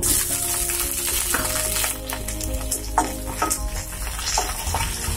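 Whole small tomatoes, garlic, green chillies and curry leaves sizzling in hot oil in a metal pan, stirred with a wooden spatula that clicks against the pan a couple of times.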